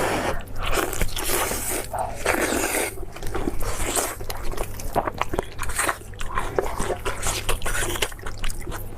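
Close-miked eating of offal balls: irregular wet biting and chewing with crunchy, smacking mouth sounds and short clicks. A steady low hum runs underneath.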